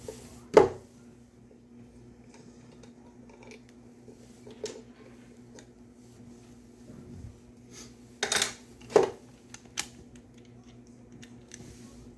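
A handful of sharp metallic clinks and knocks, one about half a second in and a cluster of three or four about two thirds of the way through, from tools and screws being handled while a speaker box is dismantled, over a faint steady low hum.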